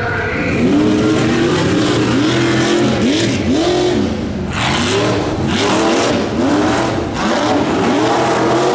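Ford Bronco tuff truck's engine revving in quick repeated throttle blips, its pitch rising and falling about twice a second. A burst of noise comes about four and a half seconds in.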